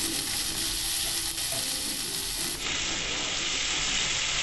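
Sliced onions sizzling steadily in hot oil in a kadai, frying until they turn reddish-brown.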